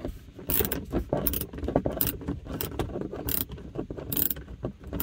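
Hand ratchet with a 7 mm socket loosening a dash speaker's mounting screw, its pawl clicking in short runs about every three-quarters of a second as the handle is swung back and forth.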